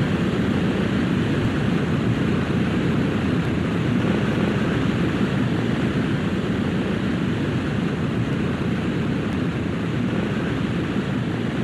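Steady drone of a P-2E Neptune's two propeller-driven radial piston engines running as the aircraft taxis, heavy in the low end and unchanging in level.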